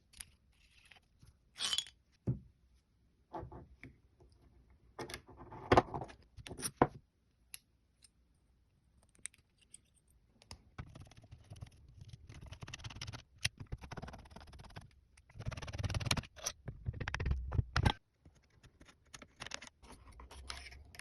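Metal parts of a Vz24 Mauser bolt-action rifle handled during disassembly: scattered clicks and clinks of steel parts, with stretches of metal scraping and rubbing in the middle.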